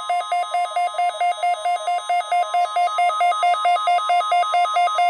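NOAA Weather Radio 1050 Hz warning alarm tone: a steady, loud single tone, with a second buzzy tone pulsing about four times a second layered over it. It is the weekly test of the alarm that switches on weather-alert receivers.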